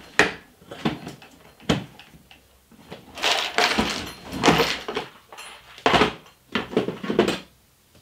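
Metal hand tools being handled and set down on a workbench: a string of sharp knocks and clicks, with a longer stretch of clattering and rattling from about three to five seconds in.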